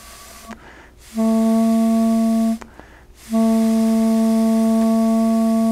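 Homemade straw-and-glove kazoo, a straw pressed up into a stretched glove membrane over joined water-bottle halves, blown to make the membrane vibrate. It gives two held notes at the same steady pitch, a short one and then a longer one after a brief break, a much softer sound.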